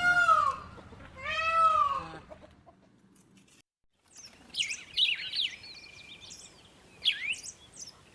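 A cat meowing twice in the first two seconds, each call rising and falling in pitch. After a short silence, a bird chirps and trills rapidly in quick high sweeps with a held whistle note.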